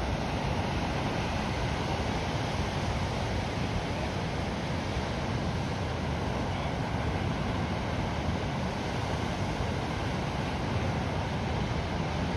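Ocean surf breaking steadily on a sandy beach, with a low rumble of wind on the microphone.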